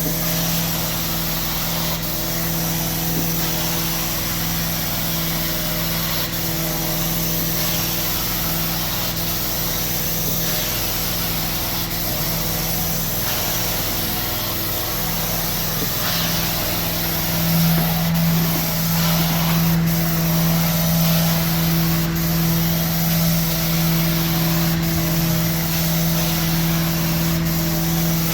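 A vacuum motor running steadily: a constant hum under a rush of air, getting a little louder about two-thirds of the way through.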